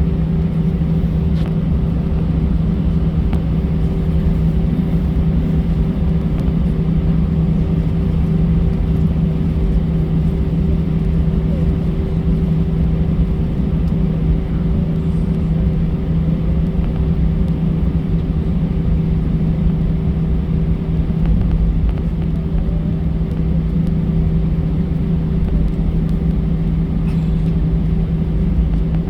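Airbus A320 engines and airframe heard inside the passenger cabin as a steady drone, with a low rumble under two constant hum tones.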